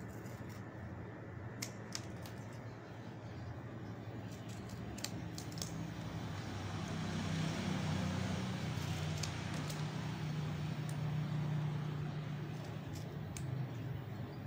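Scissors snipping off the excess ends of coconut palm leaf: scattered short clicks and snips. Underneath, a low steady hum swells in the middle and fades toward the end.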